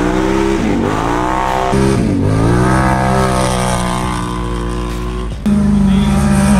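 ATV and side-by-side engines accelerating hard, their pitch climbing as each one revs up through its run. The sound breaks off suddenly about two seconds in and again about a second before the end, where a louder, steadier engine note takes over.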